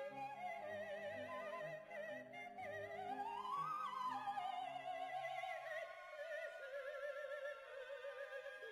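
Faint classical-style outro music: a single melody line with strong vibrato climbs to a high note about halfway through and then sinks, over low accompanying notes that drop out about three-quarters of the way through.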